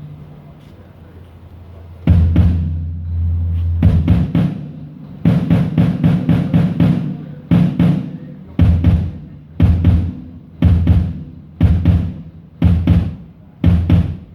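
A low drum of a drum kit struck over and over during a live sound check: a quick run of hits, then steady single strokes about once a second, each ringing low and dying away.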